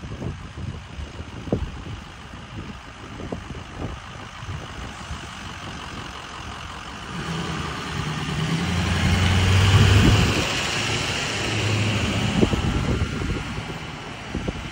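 Ford Super Duty fire squad truck's engine and tyres as it drives up and past. The sound grows louder to a peak about two-thirds of the way through, then fades as the truck moves away.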